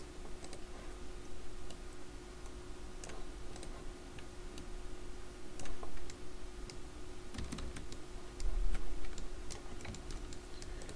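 Computer keyboard keys clicking at an irregular pace, over a faint steady hum.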